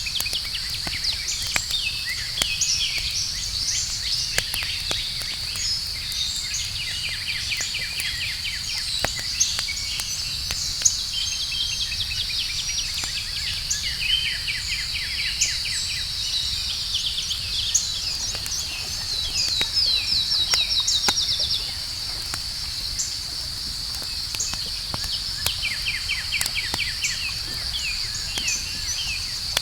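Outdoor campfire crackling with scattered sharp pops and a low steady rush, under night ambience: a steady high insect drone and repeated rapid chirping trills, the loudest trill about twenty seconds in.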